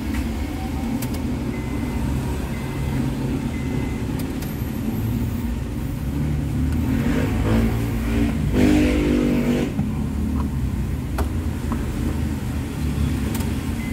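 Electric fuel pump of a Honda Civic FD, out of the tank and submerged in fuel, whirring for about three seconds past the middle as the key powers it and it pressurises a test gauge. It reaches just under 40 psi with air still in the line. A steady low rumble runs underneath.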